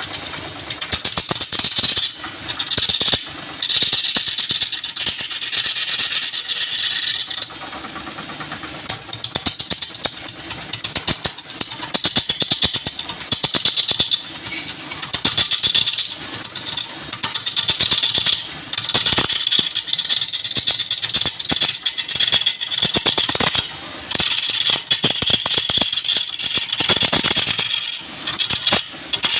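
Wood lathe with a turning tool cutting into the spinning wood: a steady high hiss with rapid chatter, easing off and starting again every few seconds as the tool is lifted and re-applied.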